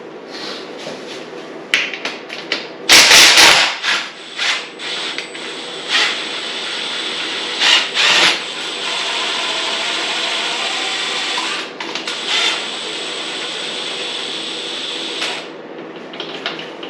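Power tool backing out the main bottom bolt that holds the motor in a 2022 Honda CRF450R frame. There is a loud burst about three seconds in, scattered clicks, then a steady run of several seconds that stops suddenly near the end as the bolt comes free.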